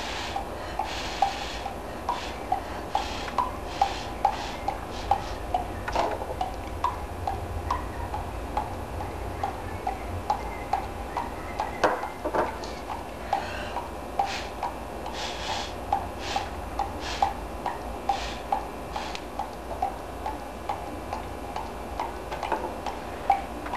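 Steady, even ticking, about two ticks a second, with a few short hissing puffs of air in between.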